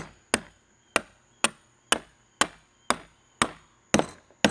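A hammer striking the head of a 1/2-inch carriage bolt, pounding it down through a drilled hole into the wooden tabletop so its square shoulder locks into the wood: about ten sharp blows, roughly two a second.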